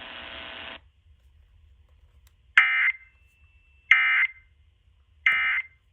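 Emergency Alert System end-of-message code from an FM radio: three short, identical, harsh buzzing digital data bursts, evenly spaced about a second apart, marking the end of the tornado-drill test alert. A steady hiss is heard before them and stops under a second in.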